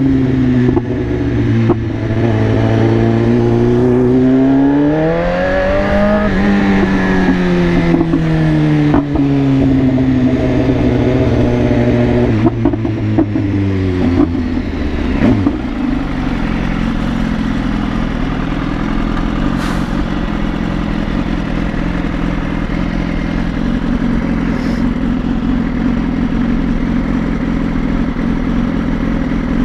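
BMW S1000RR's inline-four engine, its pitch rising to a peak about six seconds in, then falling slowly over the next ten seconds and settling to a steady low running note for the rest of the time.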